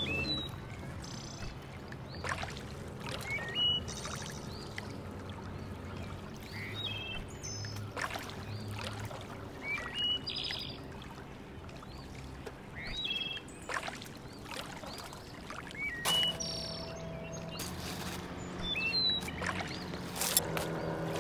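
Birds chirping in short repeated calls over water lapping at the shore, with a few sharp clicks and knocks.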